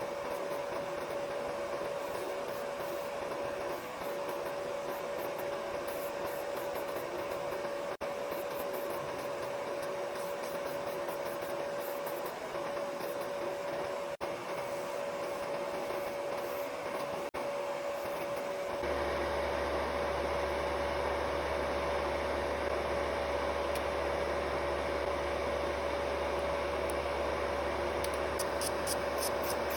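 Small electric motor of home nail-care equipment running steadily with a constant whine. About two-thirds of the way through, a low hum joins and the sound gets a little louder.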